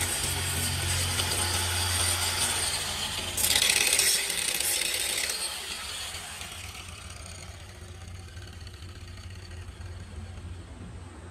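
Electric angle grinder with an abrasive disc grinding a steel strip clamped in a vise, getting louder and harsher about three and a half seconds in, then spinning down over a couple of seconds after about five and a half seconds, leaving a low hum.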